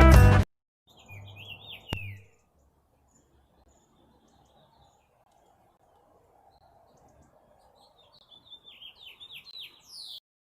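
Background music cuts off about half a second in. Faint bird chirps follow, short notes sliding downward in pitch, in a brief bout at first with a sharp click, then another bout of chirps near the end.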